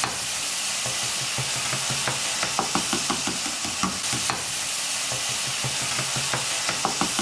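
Minced meat sizzling as it browns in a nonstick frying pan, with a steady hiss of frying fat. A spatula stirring and breaking up the meat makes many quick scrapes and taps against the pan, thickest from about two seconds in.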